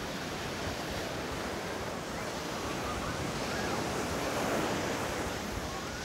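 Waves of the rough Sea of Azov breaking and washing up a sandy beach: a steady rushing surf, with wind buffeting the microphone.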